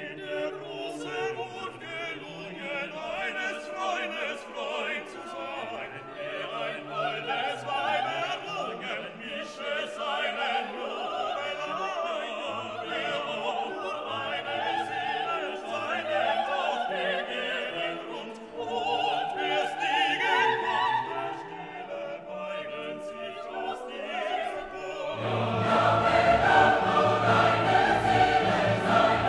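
Background classical music: choral, operatic singing over an orchestra, swelling louder and fuller about three-quarters of the way through.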